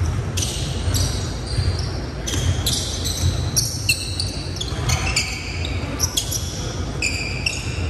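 Basketball game on a hardwood court: sneakers squeaking again and again as players run and cut, with the ball bouncing and footfalls. Everything echoes in a large gym.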